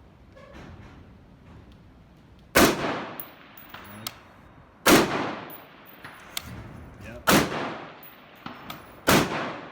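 Four slow, deliberate rifle shots from a semi-automatic M16A1-style AR-15 with a C7 upper, in 5.56 mm, each with an echoing tail. After each shot, a faint delayed ping follows about a second and a half later, typical of a bullet striking a distant steel target.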